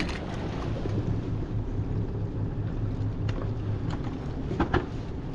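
Small boat's motor running slowly with a low pulsing hum as the boat is moved, over wind and water noise. A few short knocks come near the end.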